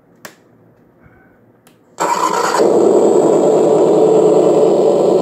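A model gasser's electronic engine-sound unit playing its startup sound: a small click early, then about two seconds in an engine sound starts suddenly and settles into a steady idle.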